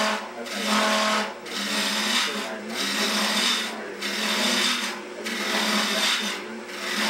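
Gouge cutting a spinning wood blank on a wood lathe, turning a taper: a scraping cut in repeated passes about once a second with short breaks between, over the steady hum of the lathe.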